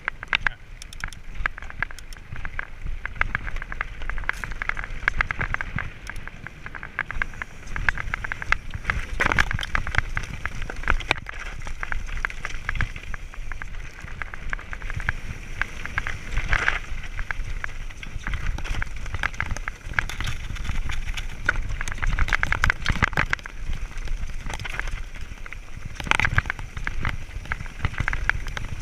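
Mountain bike rolling fast down a loose, rocky trail: tyres crunching and crackling over stones and the bike rattling, with harder knocks a few times. A steady low wind rumble sits on the microphone underneath.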